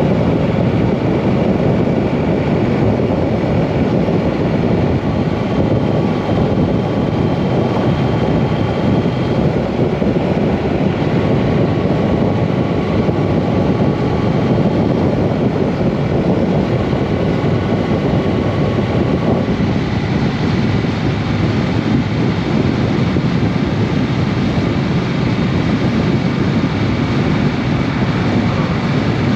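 Triumph Bonneville T120 parallel-twin motorcycle on the move, a steady engine note under heavy wind rush on the microphone. The sound shifts slightly about two-thirds of the way through.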